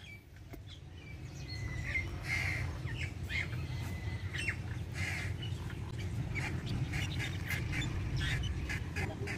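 Birds chirping and calling in short repeated notes over a steady low rumble.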